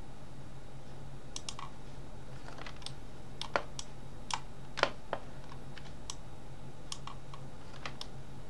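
Scattered clicks of a computer keyboard and mouse, irregular and a few sharper ones around the middle, over a steady low hum.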